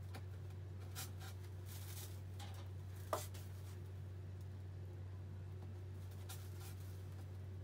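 Steady low hum, with a few light clicks and one sharper knock about three seconds in.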